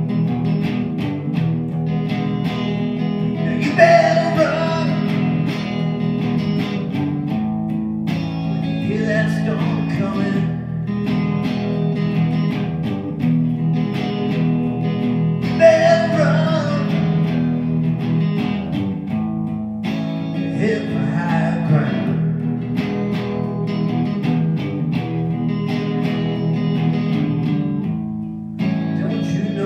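Amplified electric guitar playing a blues-rock instrumental passage: steady low notes under picked lead lines, with bent, sliding notes about four seconds in and again about sixteen seconds in.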